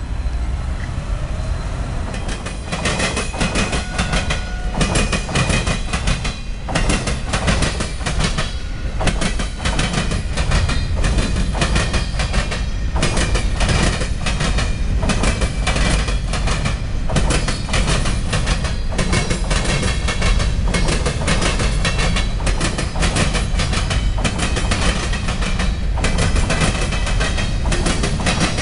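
Freight train cars (boxcars and flatcars) rolling past at close range, their wheels clacking over rail joints in a rapid, uneven rhythm over a steady low rumble. The clacking starts about two and a half seconds in.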